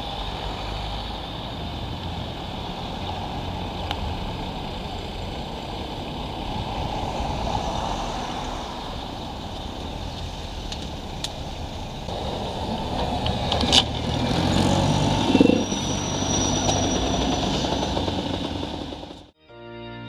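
Motorcycle engine running under steady wind and road noise on the rider's camera. About three-quarters of the way in there is a sharp click, and the engine note then rises briefly. The sound cuts off suddenly just before the end.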